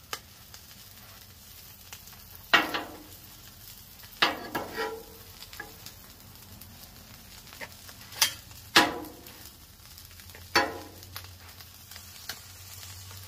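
Metal spatulas striking and scraping the steel plate of a Blackstone flat-top griddle while folding a stuffed quesadilla into a roll: about five sharp ringing clanks, scattered over a faint steady sizzle of food frying.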